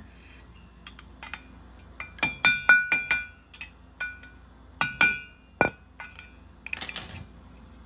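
Hammer tapping a flathead screwdriver in under the edge of a metal wheel-hub dust cap, each strike ringing with a bright metallic clink. A quick run of about five taps comes a couple of seconds in, then a few more spaced out, working the cap loose to reach the axle nut.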